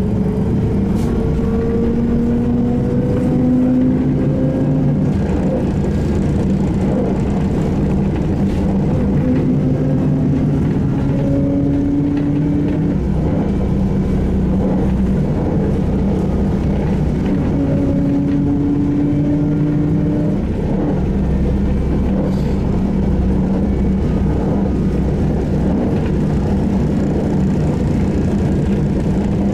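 SVARZ-MAZ-6235.00 trolleybus running, its electric traction drive whining up in pitch three times as it pulls away and accelerates, over a steady hum and road rumble.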